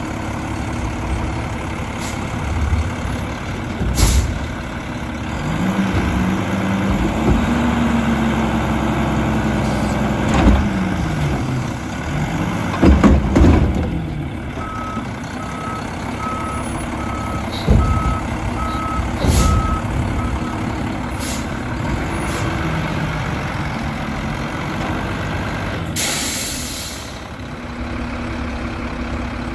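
Mack LR front-load garbage truck revving its engine to drive the hydraulics as the forks raise a dumpster over the cab and empty it, with several loud metal bangs as the can is dumped and knocked. A reverse alarm beeps about nine times midway, and an air brake hisses near the end as the truck pulls away.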